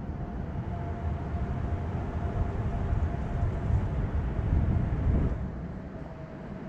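Low rumble with a faint steady whine over it, swelling to its loudest about five seconds in and then dropping away: a passing vehicle.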